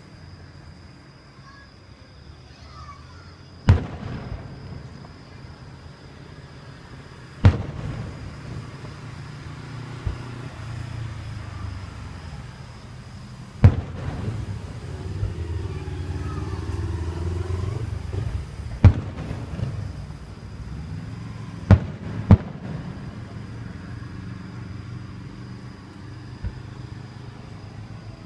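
Aerial firework shells bursting: about six sharp bangs spread several seconds apart, two of them in quick succession near the end, over a continuous low rumble.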